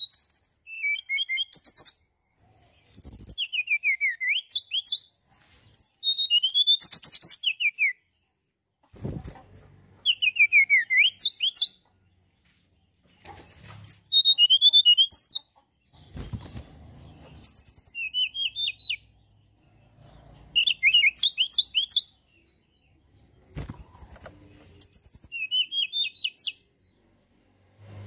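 Tledekan gunung singing: about eight bursts of rapid, high, sweeping whistled notes, each burst a second or two long, with short pauses between them.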